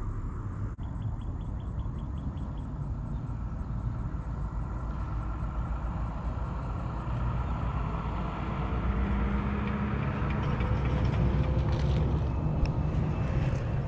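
A motor vehicle engine running, a steady low rumble that grows louder over the last few seconds.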